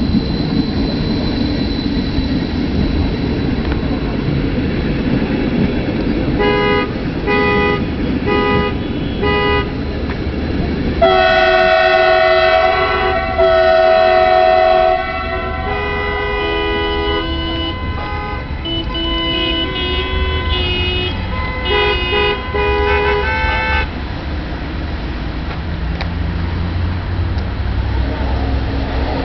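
Stadler FLIRT electric multiple unit rumbling past, then sounding its horn: a string of about five short toots, followed by longer, louder blasts at several pitches.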